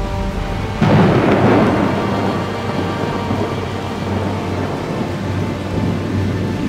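A thunderclap breaks about a second in and rumbles away over the next few seconds, over the steady hiss of heavy rain.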